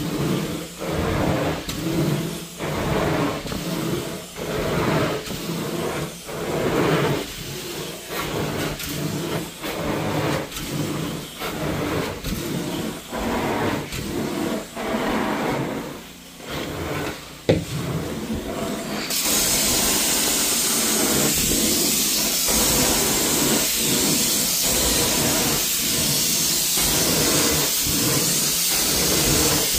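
Carpet-cleaning extraction wand worked back and forth across carpet under the extractor's vacuum, its suction surging with each stroke about once a second. About two-thirds in, after a click, a steady high hiss of the wand's spray jets joins the strokes.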